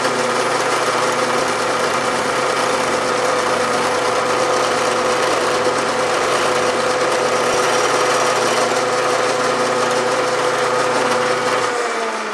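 Drilling machine running with a steady hum while a 1/8-inch twist drill bores through metal round stock. Near the end the pitch falls as the machine is switched off and spins down.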